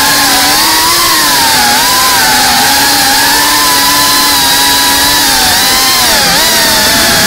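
FPV quadcopter's electric motors and propellers buzzing with a high whine. The pitch rises and falls with the throttle, dipping sharply and climbing back about six seconds in.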